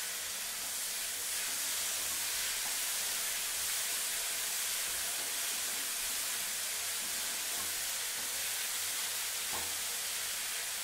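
Chopped tomato, carrots and beans sizzling steadily in oil in a frying pan, stirred with a wooden spatula.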